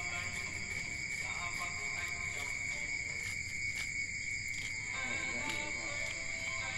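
Steady, continuous shrill chorus of night insects, with faint music behind it.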